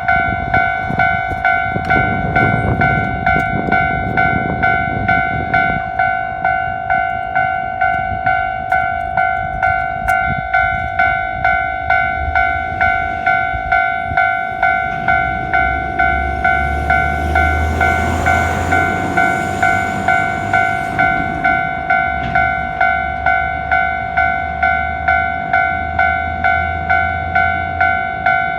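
Japanese level-crossing warning bell ringing in quick, evenly repeated strokes. From about halfway through, the low rumble of a heavy vehicle passing adds beneath it.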